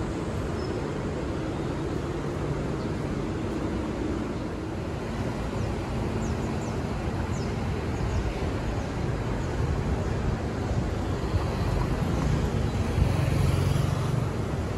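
Steady city street traffic noise, with a vehicle passing closer and louder about eleven to fourteen seconds in. A few faint high chirps come about six to seven seconds in.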